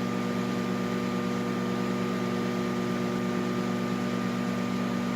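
Microwave oven running with its cover off: a steady electrical hum with a fan-like whoosh, unchanging throughout.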